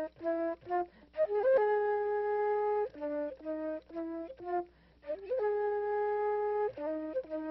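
Solo flute melody: long held notes alternating with phrases of short, quick notes, with brief pauses about a second in and just before five seconds.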